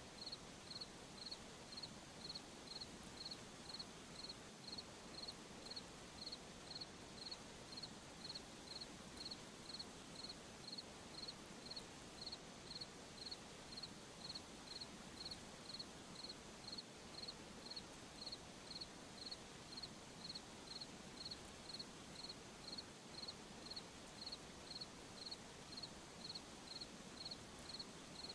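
A cricket chirping steadily in an even rhythm, about three chirps every two seconds, high-pitched, over a faint night-time hiss.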